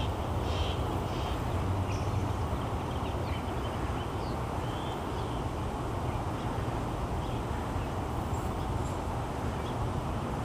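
Two puppies play-wrestling, with a few short vocal sounds about half a second apart in the first second, over a steady low rumble.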